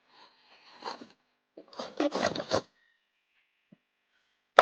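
Cardboard packaging being torn and pulled open: two spells of rasping and scraping, about a second each, the second louder with several sharp strokes, then a sharp click at the very end.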